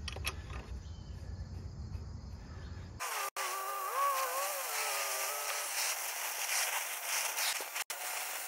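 Oxy-acetylene torch flame hissing steadily on copper tubing as it heats a brazed joint for unbrazing. The hiss comes in abruptly about three seconds in, after a quieter stretch, with a wavering whistle over it for a couple of seconds. It cuts out very briefly twice.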